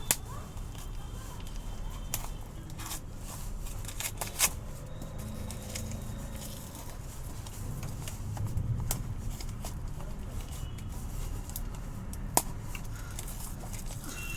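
Packaging being torn open and handled by hand: scattered crackles and sharp clicks of plastic and cardboard, with a few louder snaps.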